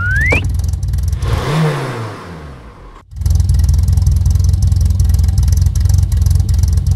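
Cartoon car engine sound effect idling with a steady low chug. About one and a half seconds in, the engine slows with a falling pitch and dies away, then it starts again abruptly about three seconds in and runs steadily. A short rising whistle sounds at the very start.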